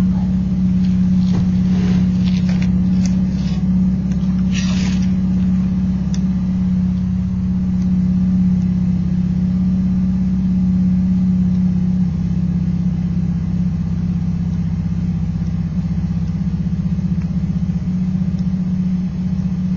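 A steady low hum with faint overtones. A few short crackles and hisses come in the first five seconds.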